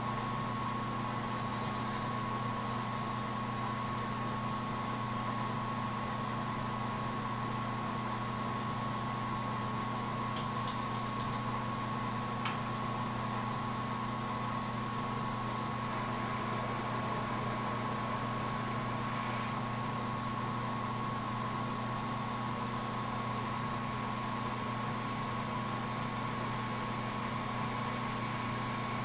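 Steady hum of running machinery with a constant thin whine, unchanging throughout. A quick run of light clicks comes about ten seconds in, and one more click about two seconds later.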